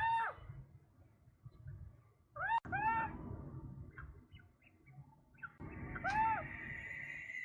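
Wild birds calling: short arched notes that rise and fall, one at the start, two in quick succession a few seconds in, and another near the end, with a long steady high note held through the last two seconds.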